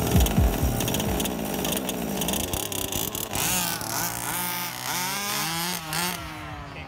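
Two 1/5-scale gas RC Baja buggies' small two-stroke engines revving hard as they race off together, their pitches rising and falling over each other and fading as the buggies pull away.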